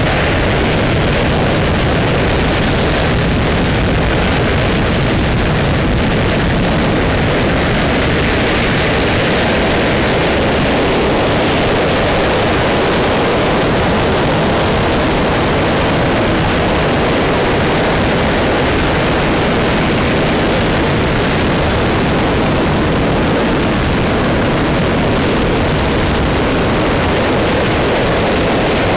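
RS-25 liquid-hydrogen/liquid-oxygen rocket engine firing in a ground hot-fire test: a loud, steady rushing exhaust noise that holds unchanged throughout.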